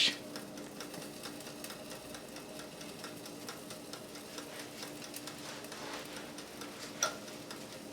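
Hamilton Beach countertop toaster oven running while it bakes: a faint steady hum with light ticking throughout, and one sharper click about seven seconds in.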